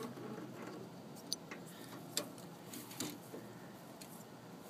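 A few faint, scattered clicks and light taps as the metal brake assembly of a lawn tractor and its brake pad are handled and turned over in the hands.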